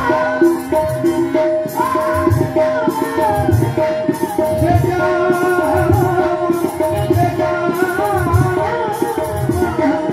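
Live Punjabi devotional singing through a PA system: a voice carries a bending melody over a steady held drone note. Underneath, a hand-drum beat falls about once a second, with bright rattling percussion between the strokes.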